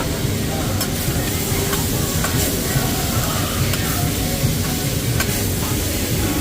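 Food sizzling on a teppanyaki hibachi grill, a steady hiss with a few sharp clicks, over background chatter.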